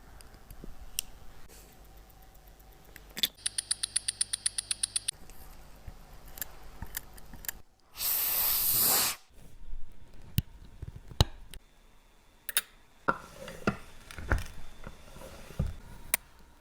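Small hand-tool clicks and taps of watch work, with a quick ratcheting run of about sixteen clicks lasting under two seconds, and a loud hiss of spray or air lasting about a second past the middle.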